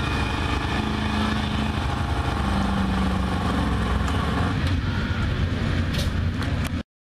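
Square-body Chevrolet pickup's engine running hard at a steady, held pitch while dragging a weight-transfer pulling sled across dirt. The sound cuts off abruptly near the end.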